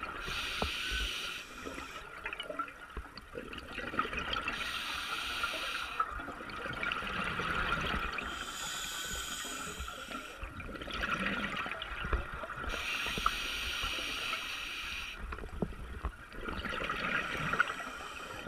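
Scuba diver breathing through a regulator underwater: a hissing breath about every four seconds, five in all, with gurgling bubbles between them.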